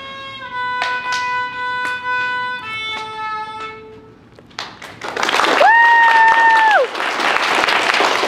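A violin and a grand piano play the last bars of a recital piece, with the piano striking chords under held violin notes that end about three and a half seconds in. After a brief pause, applause breaks out, with one long high cheer over it.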